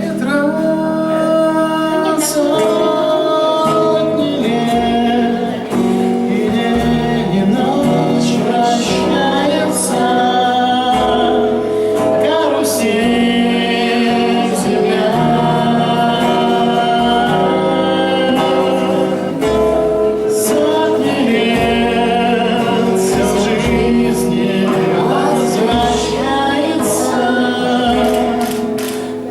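Live song: a man singing a melody to acoustic guitar accompaniment, with long held notes.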